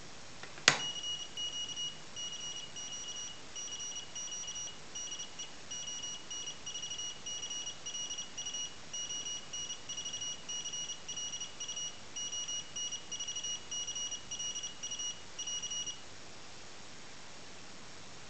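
A beeper driven from one digital output of a PIC 18F4550 microcontroller sending Morse code: a single high-pitched tone keyed on and off in short dots and longer dashes, with gaps between letters and words, for about fifteen seconds before it stops. A sharp click, the loudest sound, comes just before the beeping starts.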